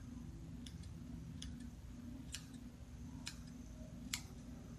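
Small ball-tip safety scissors snipping hair close to a dog's eye: about seven faint, sharp snips at an irregular pace, some in quick pairs, the strongest about four seconds in.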